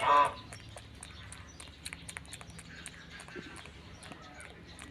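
A monkey gives a short, loud pitched call right at the start, then quieter surroundings with scattered small clicks and faint high chirps.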